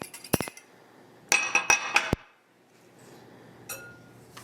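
Glass kitchenware and utensils clinking: two quick knocks just after the start, then a short run of bright, ringing clinks a little past a second in.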